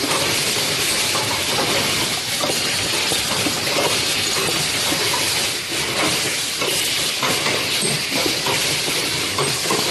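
Steady loud hiss of running factory machinery, with irregular light clicks and clatter throughout.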